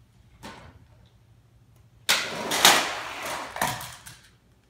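Two die-cast toy monster trucks racing down a plastic ramp track and tumbling out onto the floor. A light click about half a second in, then a sudden loud clatter with a few sharp peaks about two seconds in that dies away within about two seconds.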